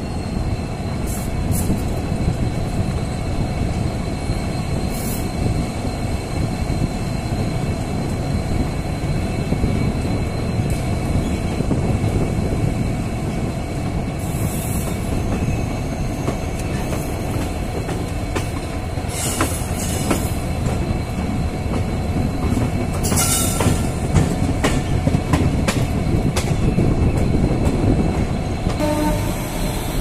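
Passenger train running at speed, heard from a coach just behind its WDP4D diesel-electric locomotive: a steady heavy rumble of the engine and the wheels on the rails, with a faint high whine and a few sharp clicks now and then.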